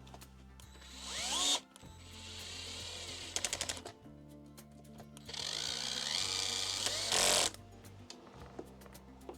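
Small electric screwdriver spinning up with a rising whine and driving screws into a model truck chassis, in two runs of a couple of seconds each, with a quick run of clicks about three and a half seconds in.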